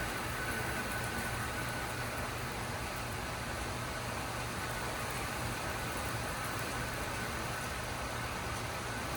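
Steady rain falling in a severe thunderstorm: an even, unbroken hiss with a constant low rumble underneath.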